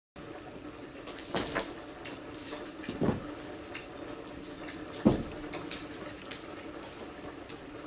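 Steady low room hum with a few knocks and thumps on top, the loudest about five seconds in.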